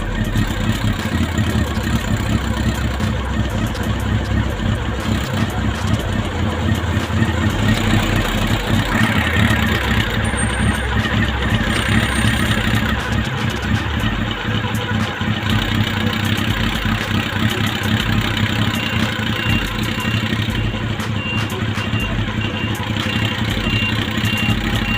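Honda CB400 motorcycle engine idling steadily, with light irregular ticking. The engine has an intermittent rattle whose cause the owner has not found.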